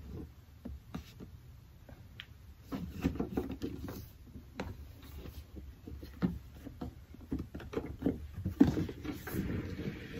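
Scattered light taps, scrapes and rustles of a cardboard gift box being handled and opened, busier about three seconds in and again near the end.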